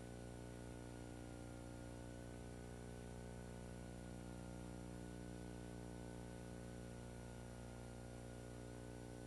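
Steady electrical hum and hiss in the recording, with no other sound.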